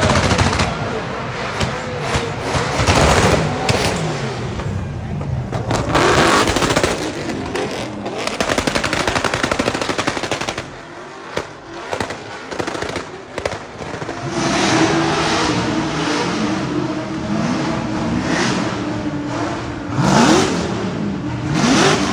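Drift cars' engines revving hard at high rpm, the pitch rising and falling, with rapid sharp popping throughout, a brief lull about halfway and fast rising revs near the end.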